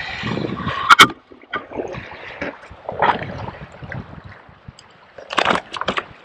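Handling noises aboard a fishing kayak with water sloshing against the hull: a sharp knock about a second in, then a run of clicks and rattles near the end as a fish is unhooked.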